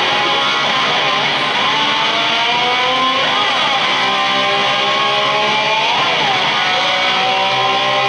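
Live rock band playing, with an electric guitar drawing several long rising slides in pitch one after another, the guitar mimicking a motorcycle revving up.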